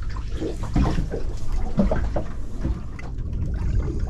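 Water sloshing and lapping against a small boat's hull in irregular splashes, over a steady low rumble.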